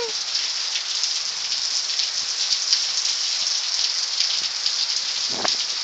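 Steady rain falling and pattering on surfaces, an even wash of many fine drop ticks.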